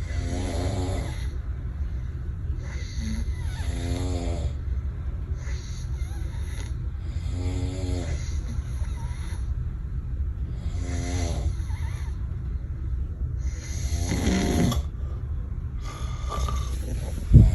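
A person snoring heavily: a rattling snore about every three and a half seconds, with softer hissing breaths between, over a steady low hum. A sudden thump near the end.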